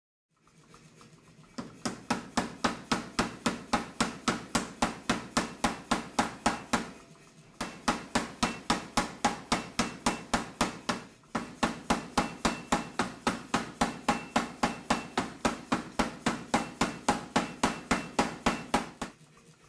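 Power hammer striking a hot bar of 4140 steel between its flat dies, a steady run of blows at about four a second, pausing briefly twice. It is drawing the round bar down into flat tong stock.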